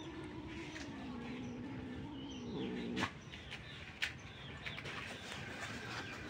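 One long, drawn-out animal call that wavers in pitch and breaks off about three seconds in, with small birds chirping faintly and two sharp clicks.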